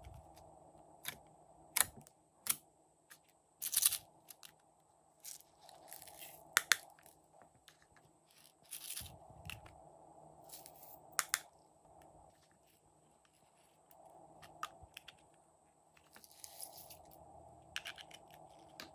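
Small hard-plastic containers of glitter and sequins being handled, clicked open and emptied onto slime: a string of sharp clicks and taps with short rattly rustles, over a faint steady hum.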